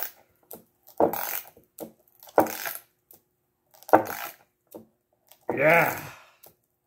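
Wrench strokes tightening nuts on threaded clamping rods through a wood glue-up: four metallic clinks about every second and a half, with short strained grunts.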